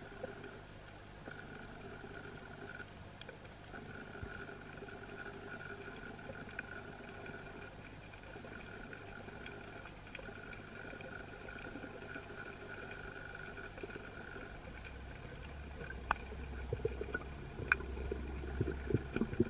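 Faint underwater ambience: a steady hum with a few scattered sharp clicks. About fifteen seconds in it grows into a louder low rumble with irregular bursts of water noise.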